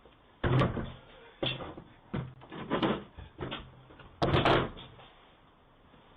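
A wooden door banging and thudding about six times in five seconds, the loudest, double bang near the end, heard through a doorbell camera's microphone.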